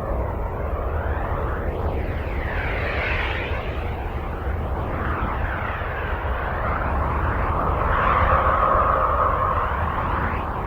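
NASA spacecraft plasma-wave radio recording converted to sound: a steady low rumble and hiss with many overlapping swooping tones that fall and rise again, and a humming band that grows louder about eight seconds in.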